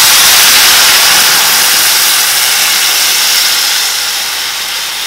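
Loud sizzling hiss of watery mashed toor dal poured into hot oil with a fried tempering of onion, garlic and curry leaves. The hiss is loudest at first and slowly dies down as the liquid fills the pan and cools the oil.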